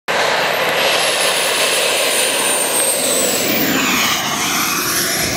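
Twin ATJ-170 model jet turbines of a giant-scale RC MiG-25 running close by: a dense jet roar with a high thin whine that falls steadily in pitch.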